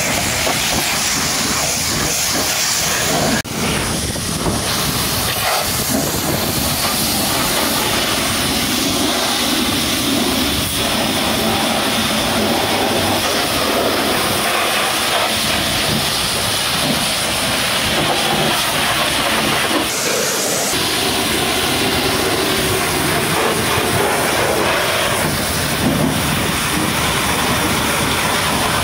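High-pressure washer jet spraying the steel chassis, bumper and rubber mud flap of a truck: a loud, steady hiss of water with spatter.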